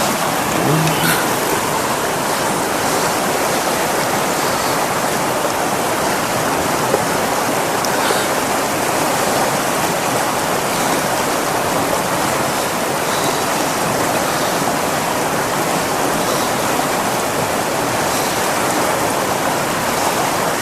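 Steady rushing of a river running over rocks.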